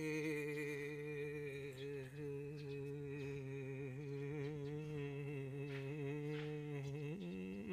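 A man's voice holding one long, low hummed note that wavers slightly in pitch, with a short bend near the end.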